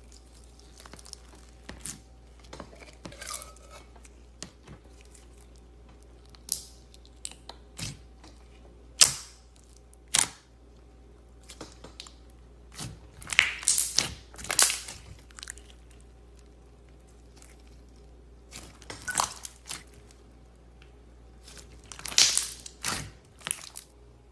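Slime being squeezed and stretched by hand: irregular crackling, squishing and popping, with louder clusters of crackles now and then.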